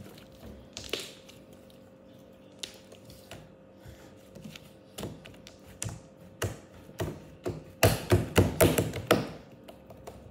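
Slime being pressed and kneaded flat on a tabletop, giving scattered sharp clicks and pops that come more often as it goes, with a quick run of louder pops about eight seconds in.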